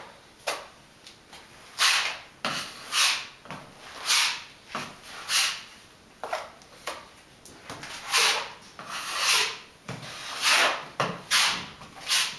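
Wide drywall taping knife scraping joint compound across drywall in repeated strokes, about one a second, with the blade also scraped and tapped against a metal mud pan as it is loaded.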